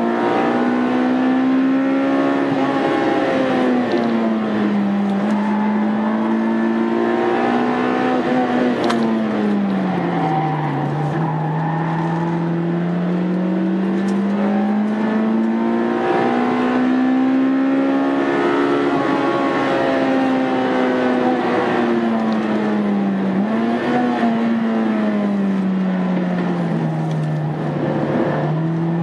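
Honda Integra Type R engine heard on board while lapping a race circuit, its note climbing under acceleration and dropping away several times as it slows and shifts.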